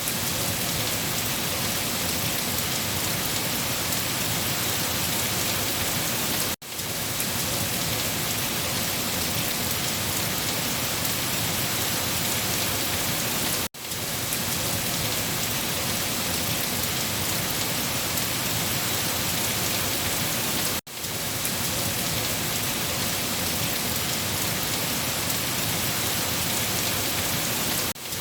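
Steady, dense rain falling, with no thunder. The sound briefly cuts out about every seven seconds, the seams of a short rain recording played over and over.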